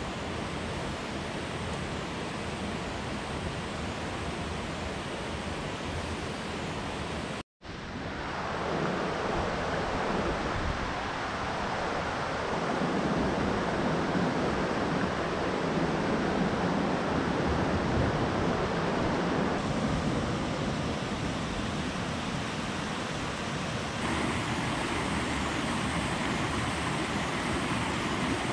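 Rocky river running over boulders and small rapids, a steady rushing of water. It cuts out for a moment about seven seconds in, then comes back louder.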